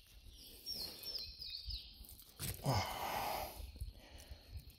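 A songbird gives a quick run of four short, falling high notes. About two and a half seconds in comes a short, louder breathy sound, like an exhale, while the bass is being unhooked.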